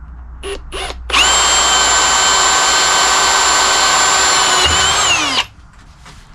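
Two short clicks, then an electric power drill running at a steady speed for about four seconds before it is released and its pitch falls as it winds down.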